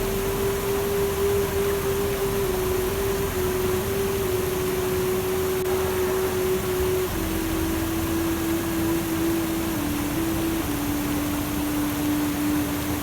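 Soft relaxation music of long held notes, stepping down in pitch a few times, over a steady rushing hiss.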